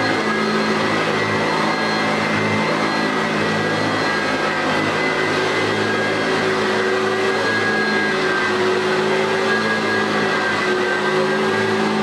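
1990 Eureka Model 1432 Type B bag upright vacuum cleaner running steadily while being pushed across carpet, a constant motor hum with a high whine over it.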